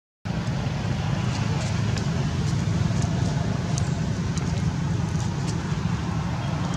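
Steady low rumbling background noise with a few faint small clicks and no animal calls.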